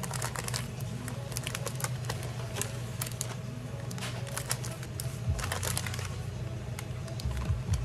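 Kraft paper sleeves and plastic film crinkling and rustling as wrapped sandwich halves are handled and slid into their paper sleeves, with a paper label strip pressed on. Irregular rustles and light clicks over a steady low hum.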